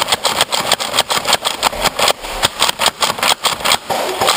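Motorized Nerf blaster running and firing foam darts in a rapid, even stream, about five shots a second.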